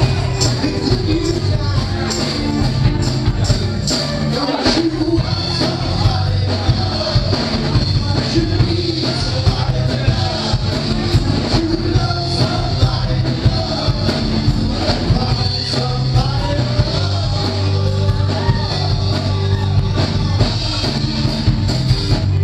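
Live rock band playing, with a steady drum beat, bass and a singer.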